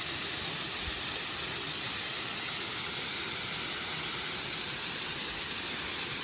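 Waterfall on a mountain stream: a steady, even rush of falling water.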